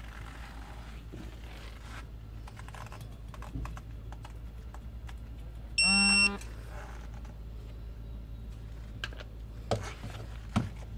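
Digital torque wrench giving one short electronic beep, about half a second long, about six seconds in: the signal that the 120-degree angle-tightening target has been reached.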